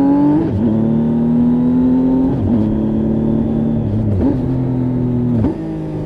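2018 Triumph Tiger 800 XRt's 800 cc inline-three engine, with an Arrow silencer, running under way. The engine note holds fairly steady, rising slightly, and dips and recovers briefly four times.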